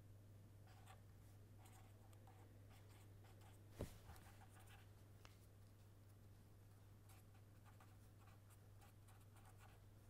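Faint scratching of a marker pen writing on paper, in short strokes over a low steady hum, with one soft thump about four seconds in.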